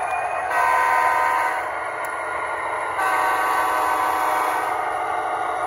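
HO-scale Athearn Genesis Union Pacific SD90/43MAC model locomotive's DCC sound decoder blowing its multi-chime air horn twice, a short blast about half a second in and a longer one about three seconds in, over a steady running sound as the lashup rolls past.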